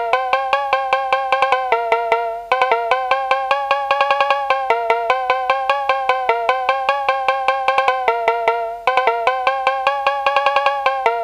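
Music: a quick, repeating pattern of short, clicky pitched notes, like a looped melody on a wood-block or mallet-like sound, dipping briefly twice.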